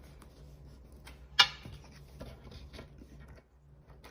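Handling of a mechanical keyboard and its cable while it is being connected: one sharp knock about a second and a half in, then a few faint clicks, over a low steady hum.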